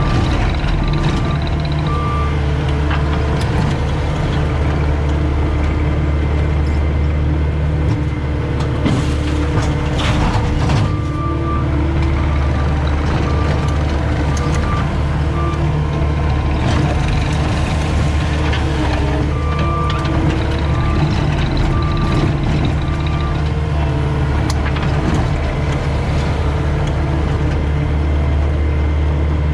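Caterpillar 259D skid steer's diesel engine running steadily, with its backup alarm beeping in three spells as it reverses while loading.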